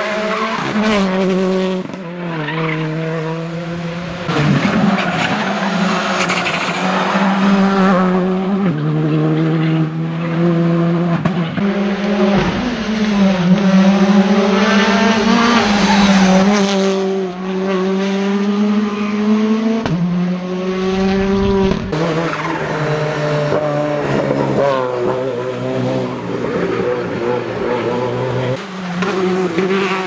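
Turbocharged 1.6-litre four-cylinder R5 rally cars, among them a Hyundai i20 R5 and a Citroën DS3 R5, one after another at full attack through tight corners. The engines rev up and drop back through quick gear changes, with tyres squealing at times. The sound jumps abruptly from one car to the next several times.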